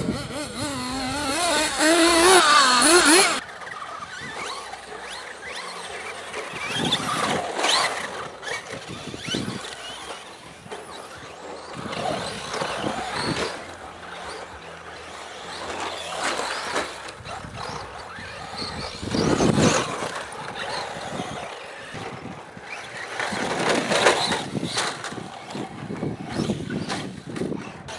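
Small nitro engines of radio-controlled cars screaming at high revs, the pitch rising and falling as they accelerate and back off. They are loudest in the first three seconds, then swell again several times as cars pass.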